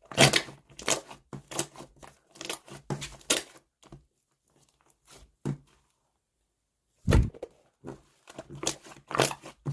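Slime being squished and pressed by hand, giving a run of sticky clicks and pops about twice a second. Halfway through it pauses for about three seconds, then comes back with a thud and more popping.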